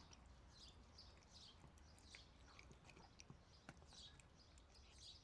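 Faint chirping of small birds, short chirps repeating about twice a second, with a few soft clicks.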